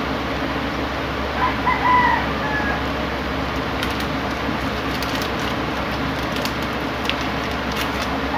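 A rooster crowing once, about a second in, over a steady background hum. A few faint clicks follow in the second half.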